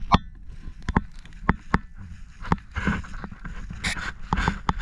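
Footsteps walking over dry field grass, with irregular knocks roughly once or twice a second and short rustles near the middle, over a low rumble of handling noise.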